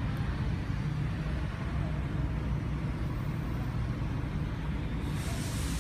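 Steady low rumble like an idling engine, with a brief hiss near the end.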